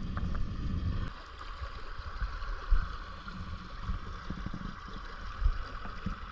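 A creek running over rock, a steady rushing of water, with low wind buffeting on the microphone that eases about a second in.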